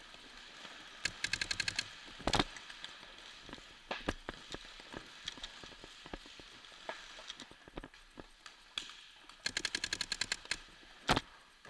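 Paintball markers firing: two rapid strings of shots at about ten a second, one about a second in and one near the end, with louder single pops and scattered single shots between.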